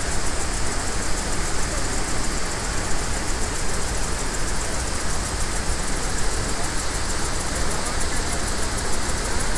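Steady rush of the Iguazu Falls' many cascades, an even noise of falling water that holds the same level throughout.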